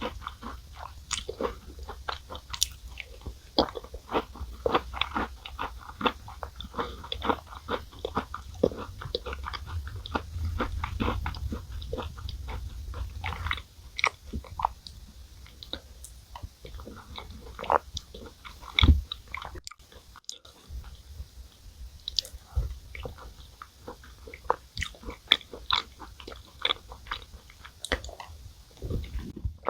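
Close-miked eating of chocolate chip cookies in milk: irregular bites, crunches and chewing, busier in the first half.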